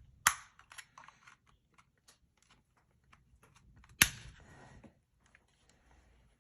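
Plastic clips of an Xbox One controller's side grip panel snapping loose as a pry tool levers it off: two sharp snaps, about a third of a second in and again about four seconds in, with small plastic ticks and scrapes between.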